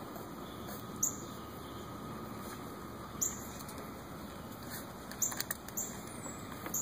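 Quiet outdoor background hiss with a few short, very high chirps spread through it and a cluster of light clicks about five seconds in.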